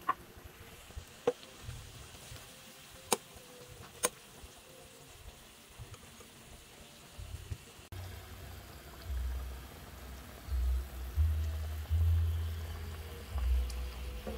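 Pot of chicken tinola broth at a rolling boil, heard from about eight seconds in as a low, uneven bubbling rumble that swells and dips. Before that, a few sharp clicks sound over a faint background.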